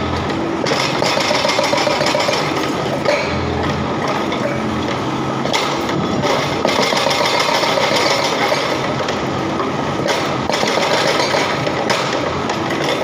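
Excavator-mounted hydraulic breaker hammering into concrete road surface, a rapid steady train of chisel blows with a few short pauses as the point is moved, over the excavator's engine running.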